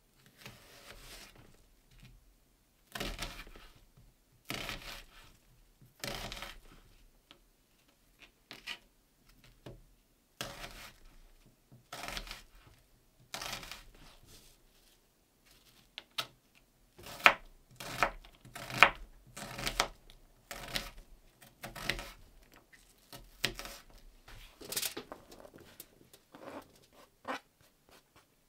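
Knife cutting an onion on a thin plastic cutting mat over a wooden table: separate slicing strokes at first, then a quicker run of sharper chopping strikes as the onion is diced.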